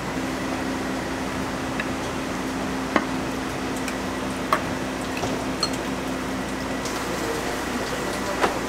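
Ramen-kitchen background noise: a steady hiss with a low hum that stops about seven seconds in, and a few sharp clinks of utensils and dishes.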